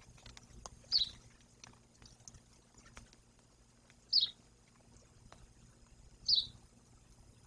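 A bird calling three times, each a short high note sliding downward, spaced about two to three seconds apart.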